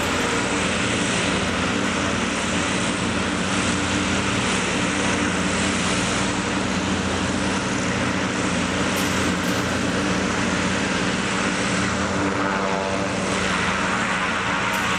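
Zeppelin NT airship's piston engines and propellers running steadily at low power while the ship stands on the ground: an even, pitched drone.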